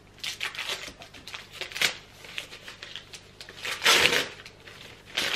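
Christmas wrapping paper being torn and crumpled as a small present is unwrapped: a run of rustles and rips, the loudest about four seconds in.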